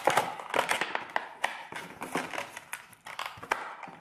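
Glued retail packaging of a thin phone case being forced open by hand: irregular crackling, crinkling and cracking clicks of the packaging.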